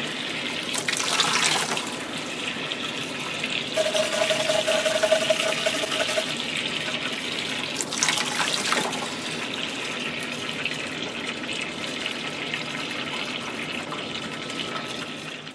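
Hot water running from a faucet into a sink and splashing over a painted Bakelite radio cabinet turned under the stream, with louder splashes about a second in and about eight seconds in. A steady whistle sounds for a couple of seconds about four seconds in.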